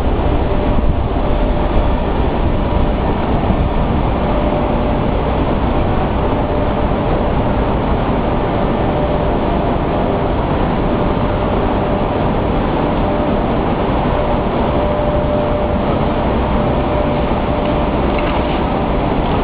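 Steady, even industrial rumble and hiss with a faint constant hum, unbroken throughout: the background noise of paper-mill machinery.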